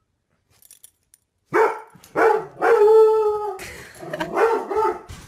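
Puppy letting out a string of short barking yelps and one drawn-out howl of about a second. The calls start about a second and a half in, after a quiet start.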